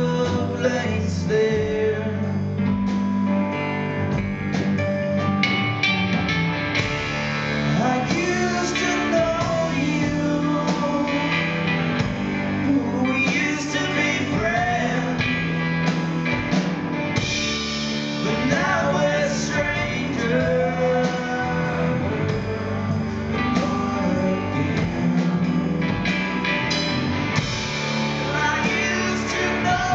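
Live rock band playing a song: a male singer's voice over electric guitar, drum kit and keyboard.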